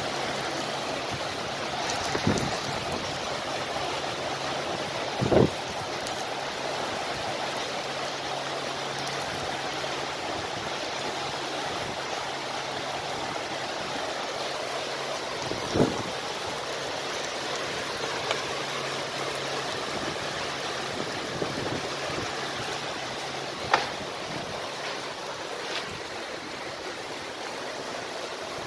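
Heavy rain falling steadily on an orange orchard, an even hiss and patter, with a few short sharp knocks standing out above it.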